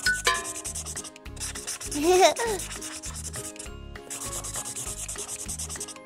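Felt-tip marker scratching and rubbing on paper during colouring, over light background music with a steady beat. About two seconds in, a short sound effect slides down in pitch.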